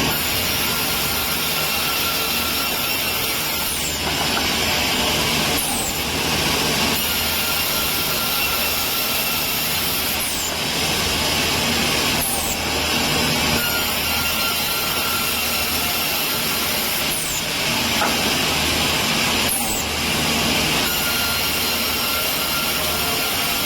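Woodworking machinery running in a wood-processing plant: a steady machine hum with a hiss that comes and goes in repeating cycles every few seconds, as the machine works through its cycle.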